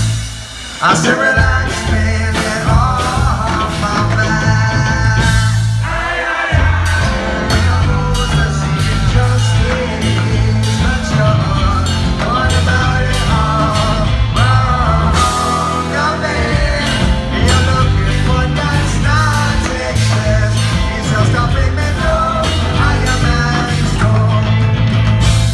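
A live rock band playing: electric guitar, keyboards and a drum kit with a steady beat, with a male lead vocal singing over it. The music drops out briefly in the first second, then the full band comes back in.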